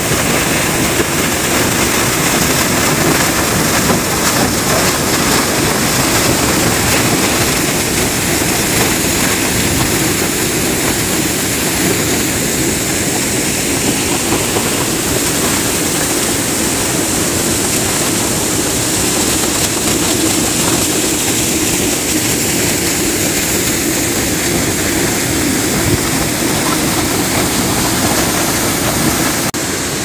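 A large waterfall's water falling and crashing: a loud, steady rushing noise.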